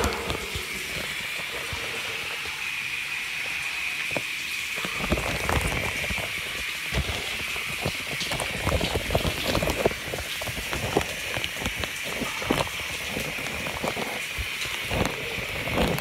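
Shower water running: a steady hiss of spray with many small taps and knocks close to the microphone.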